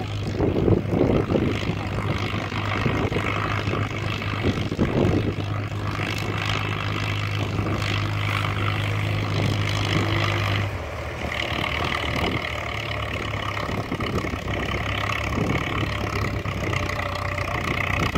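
Farmall tractor engine running steadily under load while pulling a disc harrow, a low even drone. Its note shifts slightly about halfway through, and a couple of louder gusts of noise come through in the first few seconds.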